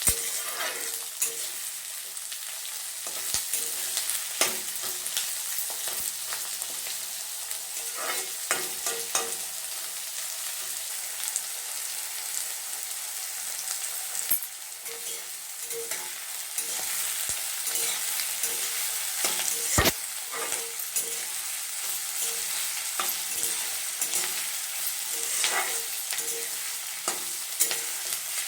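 Chopped onions sizzling in hot mustard oil in a kadhai, with a steady hiss and frequent scrapes and taps as they are stirred while frying toward golden brown. One sharper knock comes about two-thirds of the way through.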